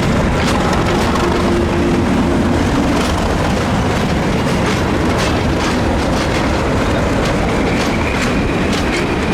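Diesel-hauled train running past, loud and steady, with the wheels clicking over rail joints from a few seconds in. A thin high wheel squeal joins near the end.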